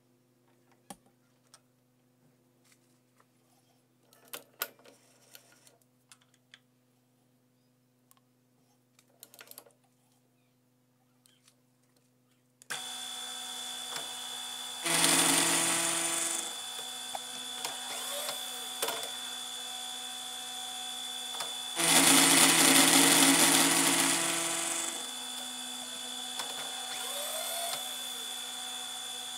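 Benchtop milling machine: a few light clicks of the metal workpiece being set in the vise, then about halfway in the spindle starts and runs with a steady whine. The insert-type milling cutter then makes two louder cutting passes into the metal bar, each lasting a couple of seconds.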